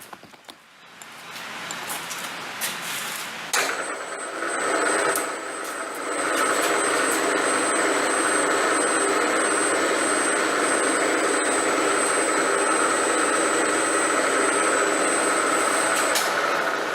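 Machine spindle running with an end mill cutting a small flat spot on a pulley: a steady machining sound with a thin high whine. It starts suddenly a few seconds in, grows louder a couple of seconds later as the cut goes on, and stops shortly before the end.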